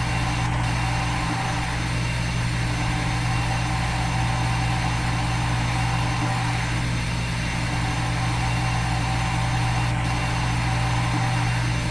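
Simulated milling-machine spindle and cutting sound from CNC simulator software: a steady machine drone with a strong low hum, looping with a slight dip about every five seconds.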